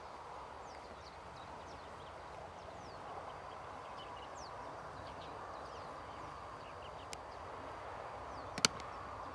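Outdoor ambience: a steady faint hiss with many short, high, falling chirps from small birds scattered throughout. A sharp single click near the end is the loudest sound.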